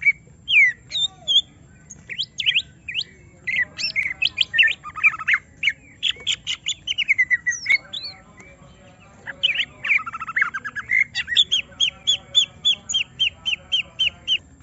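Cucak ijo (greater green leafbird) singing agitatedly, provoked by a rival: a fast, varied string of sharp chirps and squawky notes. Near the end it settles into a rapid, even run of repeated high notes, about five a second.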